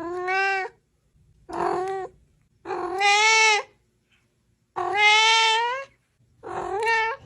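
A cat meowing loudly: five long, drawn-out meows with short pauses between them.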